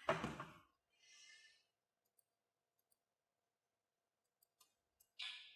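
A short thump and rustle as a person sits down at a desk, a fainter rustle about a second later, and a short breathy sound near the end; otherwise near silence.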